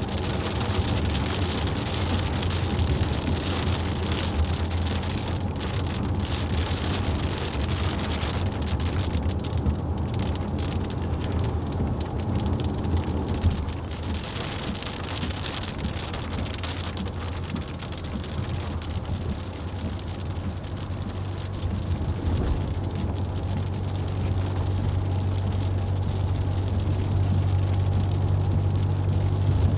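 Car driving in the rain: rain and wet-road noise over a steady low engine and road drone. The rain noise thins about halfway through, and the low drone grows louder near the end.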